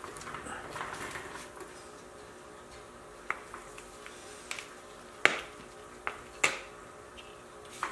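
Hand-operated grease gun being pumped, a few sharp metallic clicks spaced a second or more apart, as grease is forced through a zerk fitting into an ATV wheel bearing.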